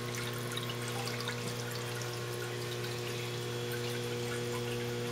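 Submersible pump running with a steady low hum, its outlet pouring a stream of water into a flood-and-drain tray with a continuous splashing trickle as the table floods.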